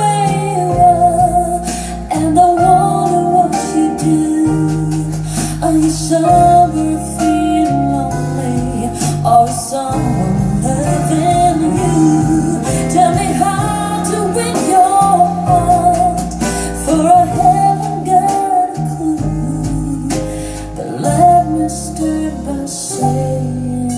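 Recorded pop song with a woman singing over guitar and bass, played back through a pair of Tannoy Canterbury SE dual-concentric floorstanding speakers in a room.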